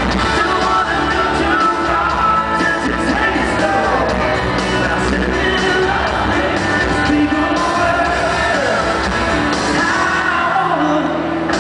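Live country-rock band playing in an arena, heard from among the audience, with a male lead singer singing over the band.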